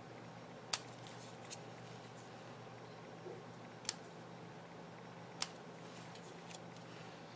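Small paper snips clipping little V-notches into the edge of a cardstock strip: a few sharp, short snips spaced a second or more apart.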